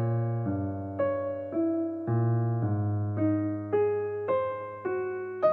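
Background music: a keyboard playing a slow melody, a new note about every half second, over held low bass notes.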